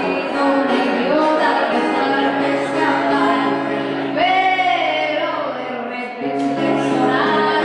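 A woman singing to her own acoustic guitar, holding long notes, with one wavering note about four seconds in.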